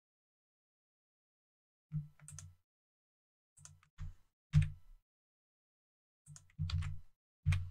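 Computer keyboard and mouse clicks picked up by the desk microphone: short clusters of sharp taps with a low thud, a few strokes at a time, with pauses between. The loudest cluster is just past the middle.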